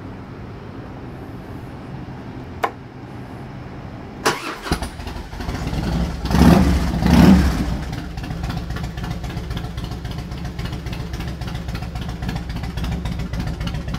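2003 Harley-Davidson Heritage Softail's Twin Cam 88B V-twin being started: a click, then a brief crank on the starter about four seconds in before it catches. It is blipped twice and settles into a steady idle through Vance & Hines Long Shots exhaust.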